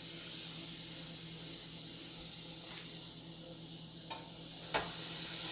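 Butter sizzling in a hot nonstick skillet on an electric stove, a steady hiss that grows louder near the end. Two light knocks of the pan about four and five seconds in.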